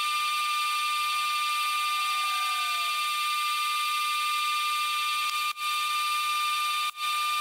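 Background music: a sustained chord of many steady high tones with no bass. It cuts out briefly twice near the end.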